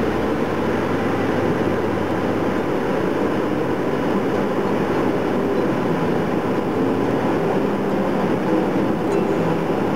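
Water of Ryuzu Falls rushing steadily down its long rock cascade, a loud, even rush with no breaks.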